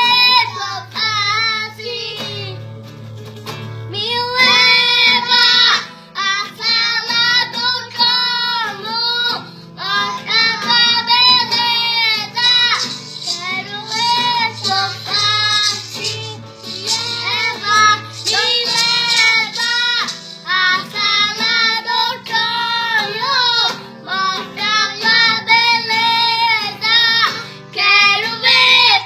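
A child singing a song in phrases over instrumental backing, with low bass notes held underneath.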